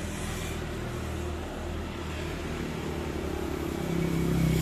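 A motor vehicle engine running steadily, growing louder about four seconds in.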